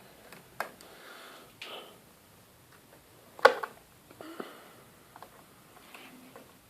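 Handling noises from working on a laptop: a few sharp clicks and light knocks, the loudest about three and a half seconds in, with short soft swishes between.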